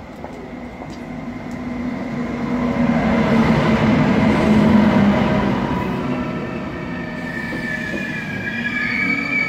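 ICE high-speed train rolling into the platform, its rumble building to a peak as the front of the train goes by, then easing as the cars slide past. A high squeal sets in near the end as it slows.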